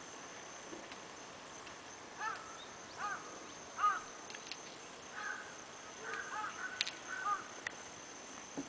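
Short animal cries, each rising and falling in pitch: three about three-quarters of a second apart, then a quicker run of several. Under them runs a steady high-pitched insect drone.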